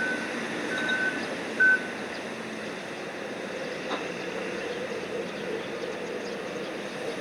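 Warning beeper on cargo-handling machinery sounding in short steady tones, the last and loudest about one and a half seconds in, then stopping, over a steady machinery drone. A steadier low hum comes up about four seconds in.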